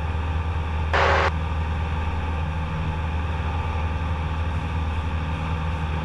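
Steady drone of a Cessna 172's engine and propeller in the climb after takeoff, with a brief burst of hiss about a second in.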